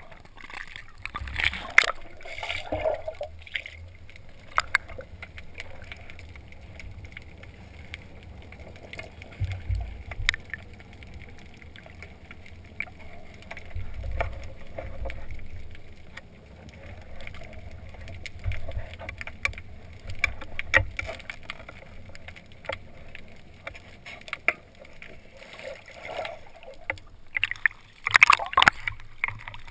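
Muffled underwater sound from a diver's camera: water gurgling over a steady low rumble. It splashes as the camera goes under near the start and again as it breaks the surface near the end.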